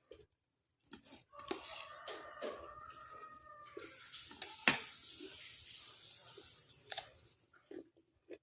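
Eating sounds close to the microphone: mouth noises and soft knocks, a hiss lasting a few seconds, and one sharp clink about halfway through, typical of a spoon hitting a bowl of meatball soup.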